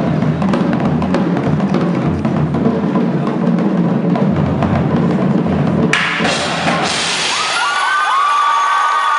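Indoor percussion ensemble playing, with marching snare drums, bass drums and mallet keyboards. About six seconds in the drumming cuts off suddenly and held high tones with sliding pitch take over.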